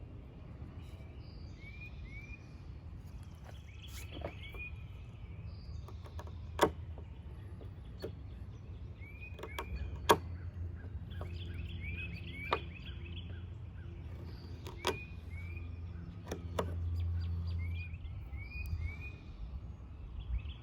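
Small bird chirping repeatedly in quick runs of two or three short curved notes over a steady low outdoor rumble. Several sharp clicks and knocks from handling gear stand out, the loudest about a third and halfway through.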